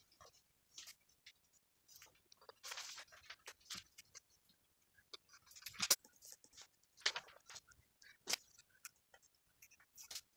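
Paper artwork being handled and stuck up on a wall: faint rustles of paper with scattered sharp taps and clicks, a longer rustle about three seconds in and the sharpest tap about six seconds in.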